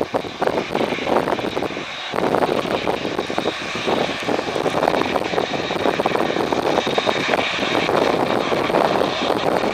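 Jet airliner engines, a loud steady rushing noise that steps up about two seconds in and then holds.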